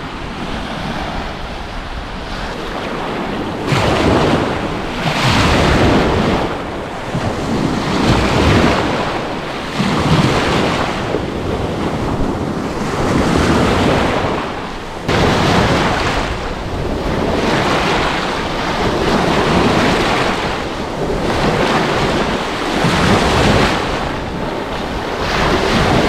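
Rough, wind-driven sea surf washing up on a sandy beach, with wind buffeting the microphone. The wash swells and falls back every couple of seconds and gets suddenly louder about four seconds in and again about fifteen seconds in.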